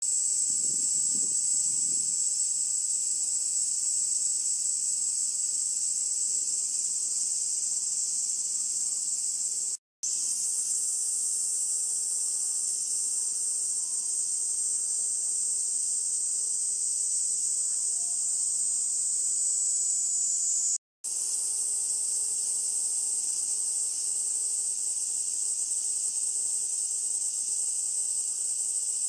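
Niinii cicada (Platypleura kaempferi) singing: a continuous, steady, high-pitched shrill buzz. It drops out completely for a moment twice, about ten and twenty-one seconds in.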